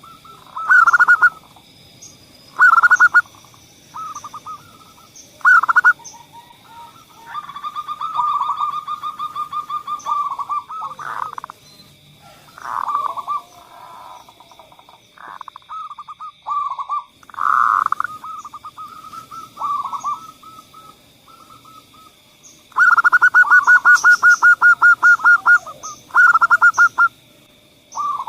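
Zebra doves (perkutut) cooing: repeated short phrases of loud, rolling coos, with a long run of rapid, evenly repeated notes about 23 seconds in. A faint steady high-pitched tone runs underneath.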